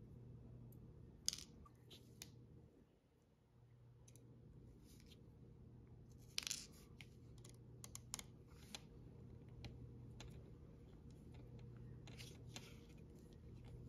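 Faint, scattered clicks and scrapes of a small precision screwdriver working tiny screws out of a DJI Mini 2 drone's ESC board, over a low steady hum.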